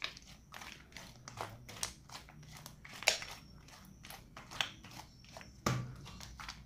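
Butter slime, slime worked together with soft foam clay, being kneaded and squeezed by hand, making a string of irregular clicks and crackles. The loudest clicks come about three seconds in and near the end.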